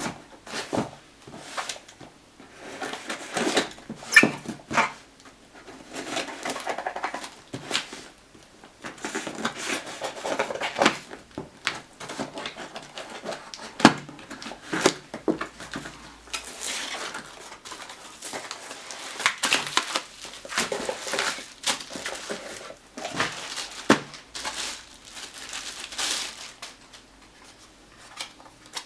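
A smartphone box and its packaging being handled and opened: scattered sharp clicks and taps with stretches of rustling and scraping.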